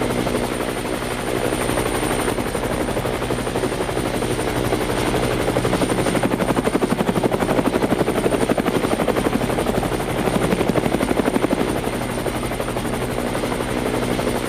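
Helicopter running, a steady engine and turbine tone under the fast, even beat of the rotor blades. The blade beat grows louder and sharper partway through, then eases back.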